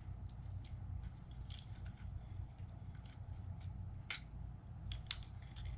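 Small sharp plastic clicks and taps from handling the parts of an opened SJRC F11 drone remote controller during reassembly, coming irregularly, the two sharpest about four and five seconds in, over a steady low hum.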